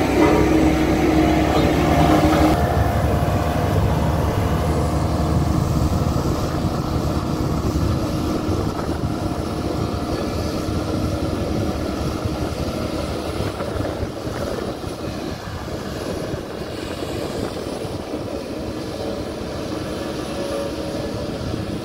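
Diesel engine of a single-drum road roller running as it passes close by and drives away. It is loudest at first, with a higher engine note that drops out about two and a half seconds in, and then fades steadily.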